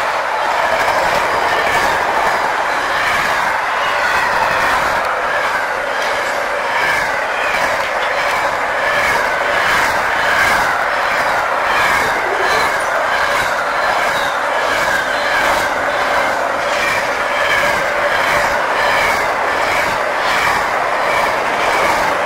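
Container wagons of a long intermodal freight train rolling past at speed: a steady loud rumble of steel wheels on rail, with a regular clickety-clack as the wheelsets pass over the rail joints.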